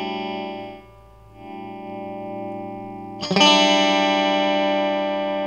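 Electric guitar chord played through a Marshall Lead 12 amplifier, left to ring and fading out, then strummed again about three seconds in and left to ring. The amp's bass and middle are turned fully down and its treble is at halfway.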